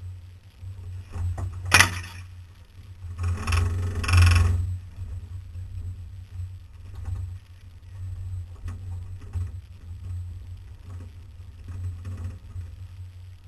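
Off-road vehicle crawling over a rocky trail, its engine a steady low drone. About two seconds in there is a sharp crack, and around four seconds a louder scraping rush as dry branches drag along the side of the vehicle. Smaller knocks and rattles follow as it rolls over rocks.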